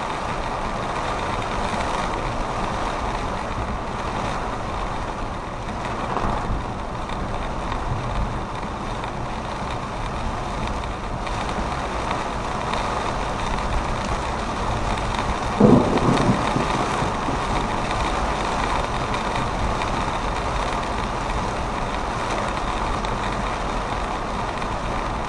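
Steady road and engine noise of a moving vehicle, with a short thump a little past the middle.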